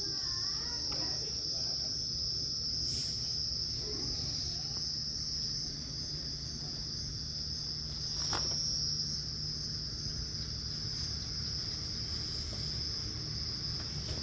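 Crickets trilling steadily in two high pitches over a low, steady rumble. A sharp click comes about eight seconds in.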